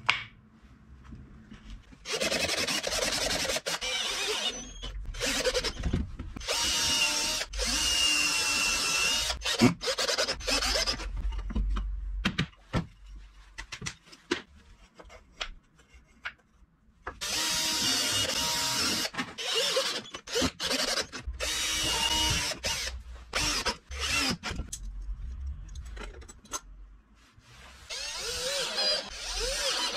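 Power drill running in three spells of several seconds each, with short pauses between.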